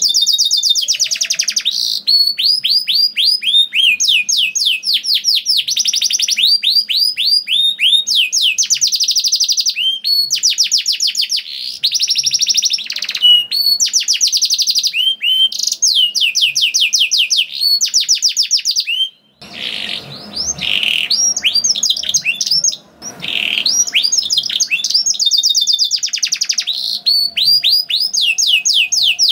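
Domestic canary singing a long, vigorous song of rolling trills: fast runs of repeated sweeping notes, one run after another, with a short break about two-thirds of the way through.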